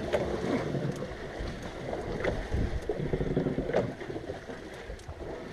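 Ambient sound aboard a small fishing boat at sea: wind buffeting the microphone over the wash of water against the hull, with a faint low hum underneath.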